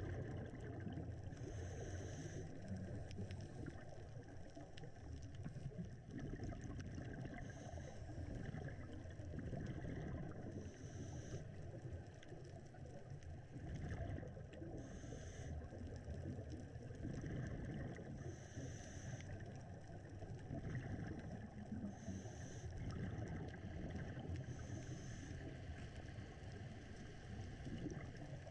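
Steady, muffled underwater rumble, with a scuba diver's regulator breathing, a short hiss, recurring every three to four seconds.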